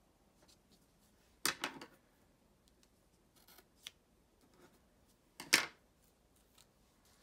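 Washi tape, scissors and paper planner pages being handled on a desk: two short, sharp noisy sounds about four seconds apart, the second the louder, with a small click between them.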